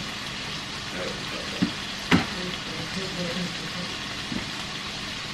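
Salisbury steak patties sizzling in oil in a black skillet: a steady frying hiss. Two sharp clicks break through, about one and a half and two seconds in.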